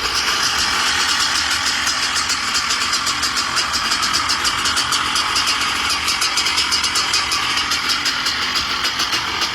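Honda CR500 two-stroke single-cylinder motocross engine, freshly rebuilt, running steadily with rapid, even firing pulses.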